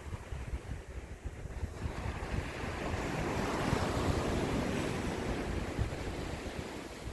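Sea waves: a wave surges in, building to a peak rush about halfway through and then washing back and fading, over a low gusty rumble of wind on the microphone.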